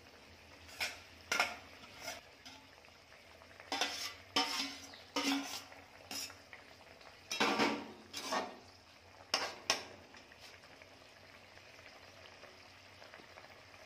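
Flat metal spatula scraping and knocking against a metal kadhai while stirring fish pieces into curry gravy. About ten irregular scrapes come in clusters over the first ten seconds, with the curry sizzling faintly throughout.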